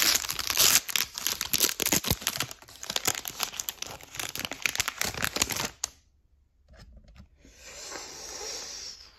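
A foil Pokémon TCG booster pack being torn open and crinkled, a dense run of sharp crackling rips and rustles that stops after about six seconds. A softer, even rustle follows near the end.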